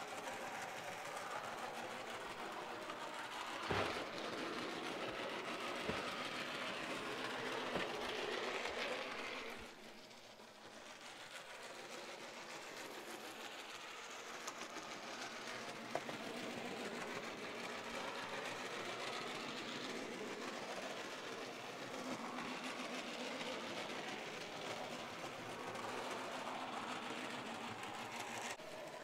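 Bachmann HO scale DeWitt Clinton model train running slowly around its track: a steady whir from the small electric motor in the tender, with a few faint clicks from the wheels on the rails. The running sound drops away briefly about ten seconds in, then picks back up.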